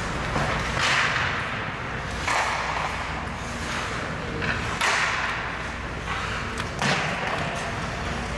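Ice hockey play in an indoor rink: skates scraping the ice in several short bursts, with a sharp clack of stick or puck about seven seconds in.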